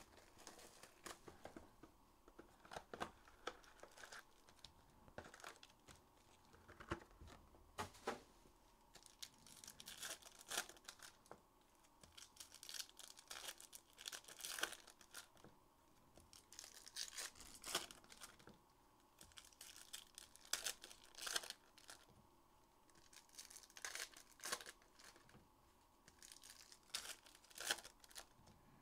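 Packaging on a box of Panini trading cards being torn open and crinkled by hand: a faint, irregular run of short scratchy rips and crinkles, on and off.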